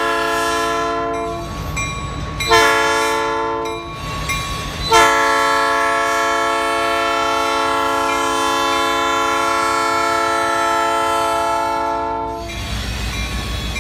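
Diesel freight locomotive's air horn sounding several notes at once over the low rumble of the passing train. It gives the end of one blast, a short blast about two and a half seconds in, then a long blast of about seven seconds that stops near the end. This is the horn pattern blown for a grade crossing.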